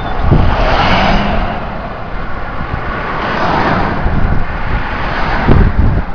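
Gusty wind buffeting the microphone: a loud rushing noise over a deep rumble, swelling and easing several times.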